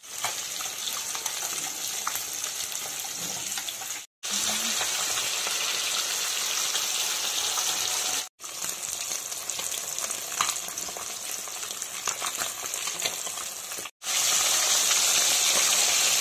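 Rohu fish pieces sizzling as they fry in hot mustard oil in a kadai, a steady sizzle with small crackles. It breaks off in brief silent gaps three times and is somewhat louder after the last one.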